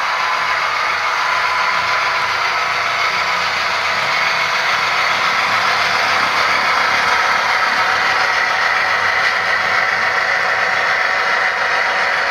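HO scale model Canadian Pacific diesel locomotive and grain hopper cars running past close by: a steady engine-like running sound with light clatter of wheels on the track.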